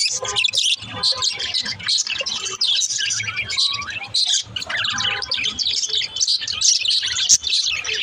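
A flock of budgerigars chirping and warbling together, a dense, unbroken chatter of short high chirps.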